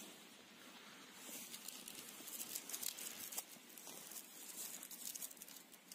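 Small plastic packet being crinkled and torn open by hand: faint irregular crackling that starts about a second in.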